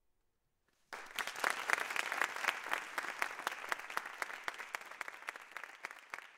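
Audience applauding: after about a second of near silence the clapping starts all at once, then slowly thins.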